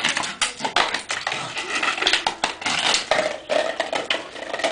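A small flower pot knocking and scraping on a concrete floor as a dog pushes it along and carries it in her mouth: a steady run of irregular clatters and scrapes.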